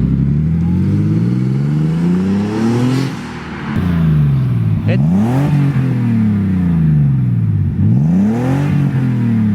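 Turbocharged BMW E36's engine being driven hard: revs climb for about three seconds, dip briefly as the throttle closes, then rise and fall several times with throttle on and off. There is a sharp click about halfway through.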